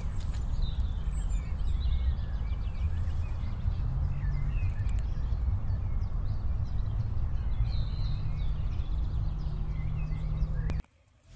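Outdoor ambience: birds chirping over a steady low rumble. It cuts off abruptly near the end.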